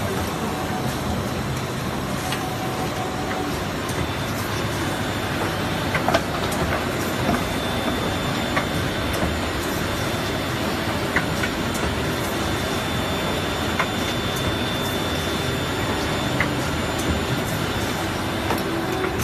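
Steady din of rigid box making machinery running in a busy exhibition hall, with a few sharp clicks from the machine's moving parts now and then.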